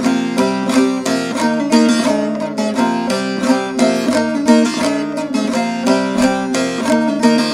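A short-neck bağlama (saz) with a mulberry bowl, tuned to Do (C), played solo in a fast run of quick, closely repeated plucked and strummed notes.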